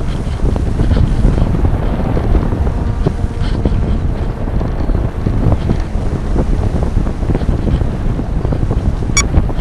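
Airflow buffeting the onboard camera's microphone on a Reichard Blizzard RC model glider in flight: a loud, steady rumble of wind noise. A brief high chirp sounds near the end.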